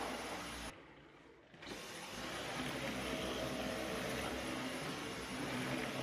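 Cordless stick vacuum cleaner running steadily as its floor head is pushed over a wooden floor and along a rug's edge. The sound drops away for about a second shortly after the start, then resumes.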